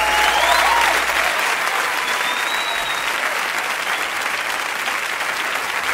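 Audience applauding, with a few whistles over it in the first few seconds.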